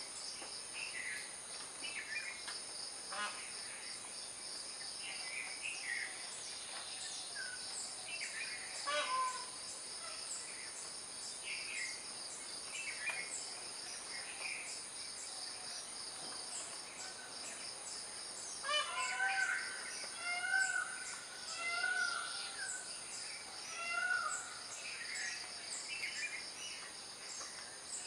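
Outdoor birdsong ambience: a steady high insect drone with scattered short bird chirps, and a bird giving a run of short, repeated calls about two-thirds of the way through.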